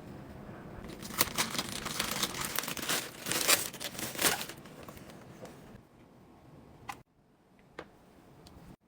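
Packaging crinkling and tearing as a product is unwrapped by hand, a dense run of crackles loudest in the first half. It then fades to a few light taps, with sudden silent breaks.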